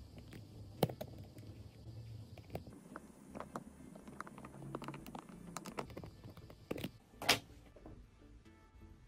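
Small sharp clicks and taps of metal tweezers and tiny parts as a pinch roller and its retaining washer are fitted onto a cassette deck mechanism, the loudest just under a second in and about seven seconds in. Soft background music plays under it.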